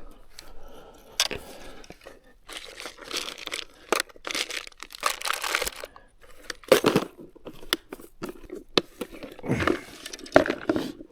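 Irregular rustling and crinkling close to the microphone, with scattered sharp clicks.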